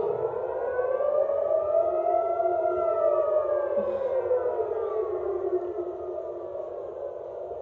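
Air raid siren wailing: its pitch rises slowly for about two and a half seconds, then falls and levels off at a low pitch, growing fainter near the end.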